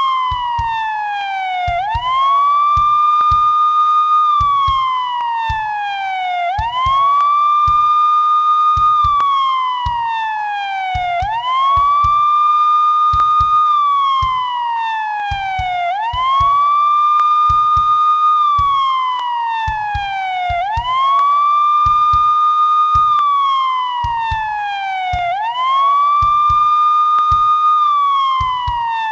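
Police siren sounding a wail. Each cycle rises quickly, holds its high pitch for about a second and a half, then slides slowly back down, repeating about every four to five seconds.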